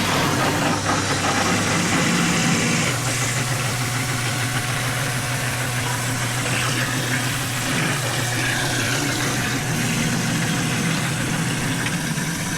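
Water from a garden hose running into an aluminium jon boat's hull as it fills, with a steady low motor hum underneath.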